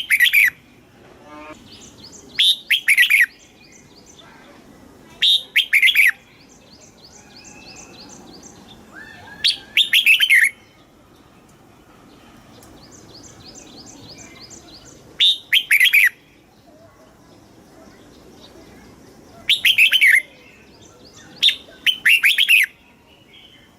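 Red-whiskered bulbul singing: short, loud, bubbly whistled phrases, each under a second, repeated every few seconds, with fainter quick chirping in between.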